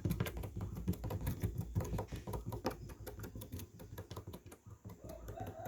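Rapid, irregular clicking and tapping, several small clicks a second.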